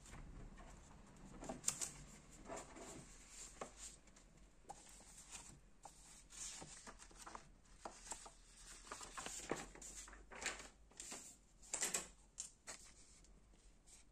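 Printed paper sheets rustling and crinkling as they are picked up, turned over and handled, in irregular short bursts.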